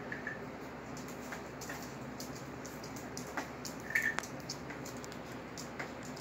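Rhodesian ridgebacks moving about on a concrete floor: scattered light clicks and taps, with a few short high squeaks, the strongest about four seconds in, over a steady low hum.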